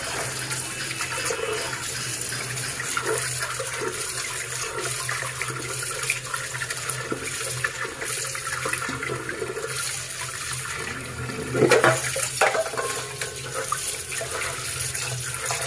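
Water running and splashing as cut lata fish (snakehead) pieces are washed by hand, with a louder knock about twelve seconds in.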